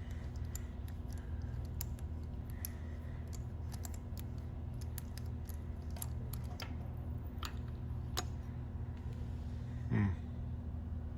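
Ratchet and 5/8-inch spark plug socket clicking in irregular strokes as a loosened spark plug is backed out, over a steady low hum. A brief falling squeak near the end.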